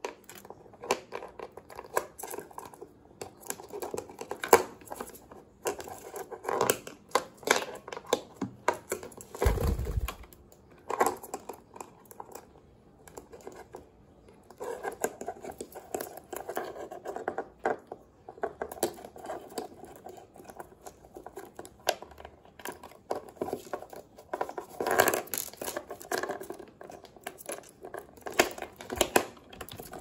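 Budgerigar playing with a plastic clothespin: irregular clicks, taps and scraping of the plastic against the desk, with a dull thump about ten seconds in.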